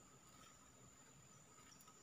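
Near silence: faint outdoor background with a thin steady high tone and a couple of very faint short chirps.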